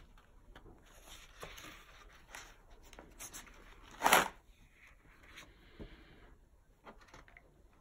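A large paper page of a spiral-bound photo album being handled and turned: soft paper rustling, then a quick, loud swish as the page flips over about four seconds in.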